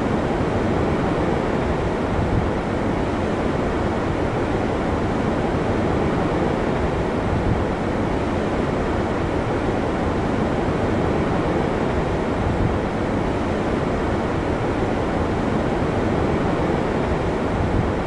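Rough, typhoon-driven sea surf with wind, a steady dense rushing noise with no separate wave crashes standing out.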